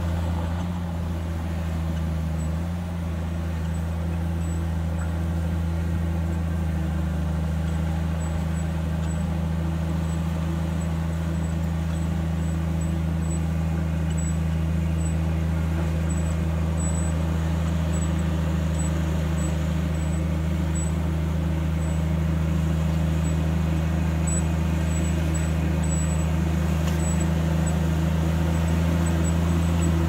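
Heavy diesel engine of earth-moving machinery running steadily at a constant speed, a low drone that grows slightly louder over the stretch.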